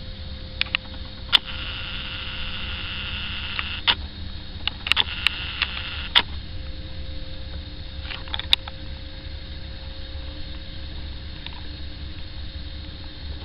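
DAF LF road sweeper truck working: a steady low diesel rumble with a steady hum, and a hiss that rises for a few seconds about a second in. Sharp clicks come several times, bunched around the middle.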